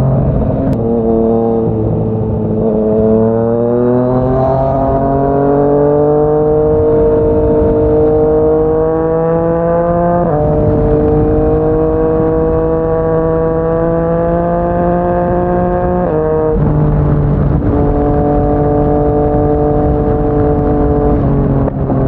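Yamaha MT-09's inline-three engine through a Yoshimura R55 slip-on exhaust, under way: the engine note climbs steadily for several seconds as the bike accelerates, then holds fairly steady. Its pitch steps abruptly about ten seconds in, again around sixteen seconds, and once more near the end.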